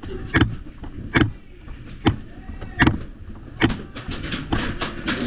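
Footsteps at a steady walking pace, about one step every 0.8 s, with gear shuffling and more scuffing in the second half.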